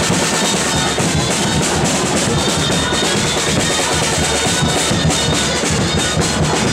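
Catalan festival band music: drums beating busily under the reedy held notes of gralles (Catalan shawms).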